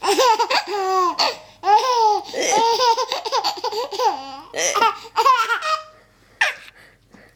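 Baby laughing hard in long, high-pitched peals, almost without a break, then stopping near the end with one short last laugh.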